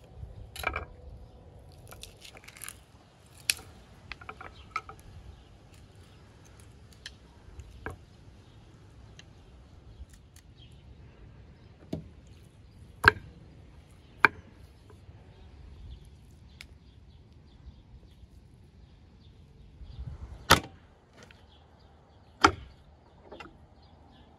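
Scattered sharp knocks and clicks, with quiet between, as a knife and raw lamb legs are handled on a wooden cutting board.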